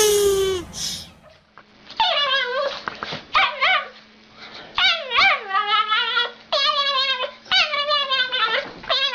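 Dog whining in a run of short, high, wavering yips and whimpers, rising and falling in pitch like talking. A brief falling cry of another kind is heard in the first second, cut off.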